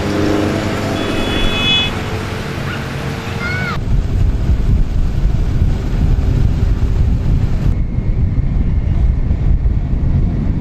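Motorcycle engines running as the race escort passes, with a few short high chirps. About four seconds in, this suddenly gives way to heavy wind buffeting on the microphone from riding a motorcycle along with the race, over the motorcycle engines.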